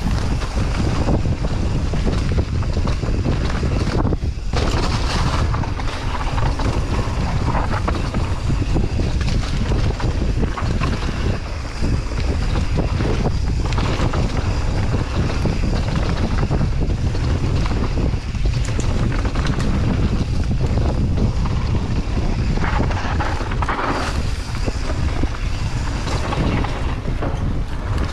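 Wind buffeting the microphone of a camera on a mountain bike riding downhill, over a steady rumble of tyres on a dirt trail, with a few knocks and rattles from bumps.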